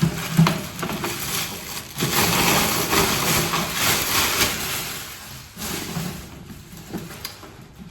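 Packaging rustling and crackling as a boxed air fryer is unpacked, in uneven bursts that are busiest in the middle and then die down.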